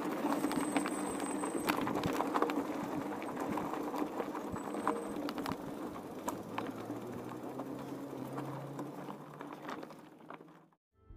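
Mountain bike rolling over a rough gravel and stone trail: tyres crunching and the bike rattling, with many sharp clicks and knocks. It grows quieter near the end.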